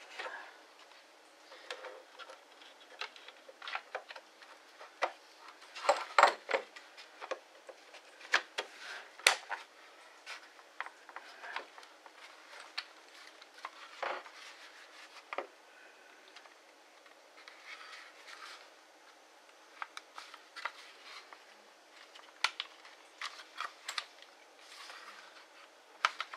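Irregular clicks, taps and light rattles of hard plastic and metal parts being handled and pressed together as a cordless hammer drill's gearbox and motor are fitted into its plastic housing, a few sharper knocks about six seconds in and again near the end.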